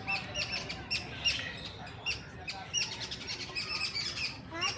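Several small birds chirping, with many short high notes repeating and overlapping, over a low steady rumble of city background noise.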